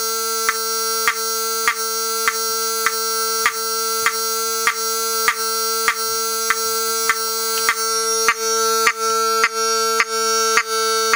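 Wheelock 7002T fire alarm horn sounding a loud, steady buzzing tone, broken by a short tick a little under twice a second. It is running underpowered on 15 volts instead of its rated 24 volts.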